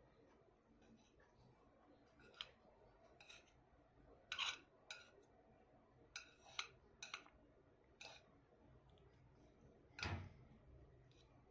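Scattered light clicks and clinks of cutlery and dishes being handled during a meal, about ten in all, irregularly spaced, with a heavier knock near the end.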